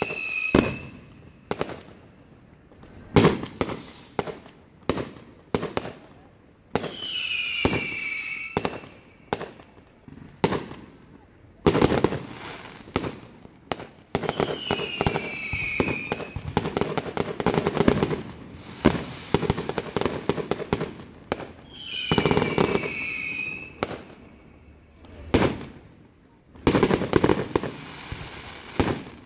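Aerial fireworks display: shells bursting with sharp bangs and crackle, and a dense, continuous volley of reports in the middle. A high falling whistle sounds three times.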